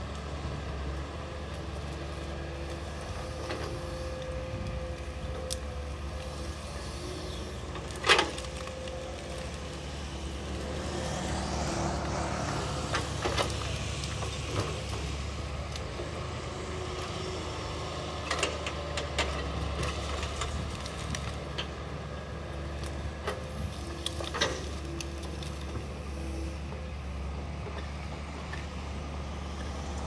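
Hitachi crawler excavator's diesel engine running steadily with a low hum, broken by several sharp knocks, the loudest about eight seconds in.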